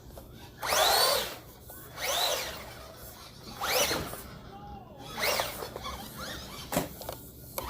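Electric motor of a 1/18-scale Traxxas LaTrax Teton RC monster truck whining in short bursts, its pitch rising and falling with each blip of the throttle, about four times.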